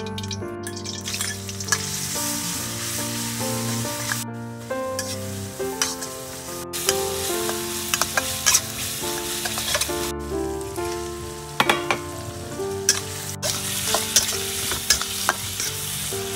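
Hot oil sizzling in a steel wok as sliced red chillies and shrimp are stir-fried, with a metal spatula scraping and clicking against the pan. Background music plays underneath.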